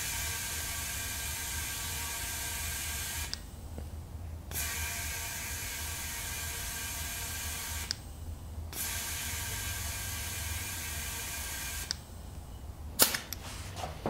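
Compressed air hissing into a car tire through a tire inflator's chuck on the valve stem, in three bursts of about three seconds with short pauses between, as the pressure is topped off. Near the end a sharp click and brief puff of air as the chuck comes off the valve.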